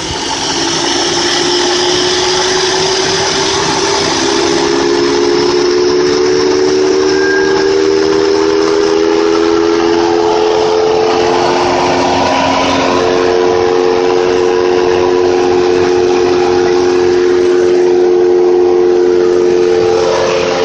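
BMW 740i's M62 V8 idling warm, heard up close in the engine bay: a steady running noise with hiss and several steady whining tones that rise slowly in pitch, then hold. The owner says the engine has developed a knock, which he thinks comes from the lower end of the engine.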